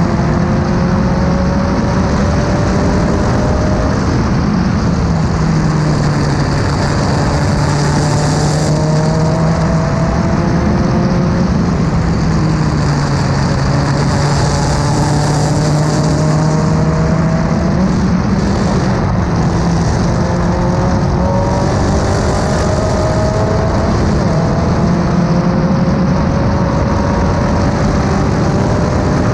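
Race car engine at full throttle, its pitch climbing steadily and dropping back at each gear change, over constant loud background noise.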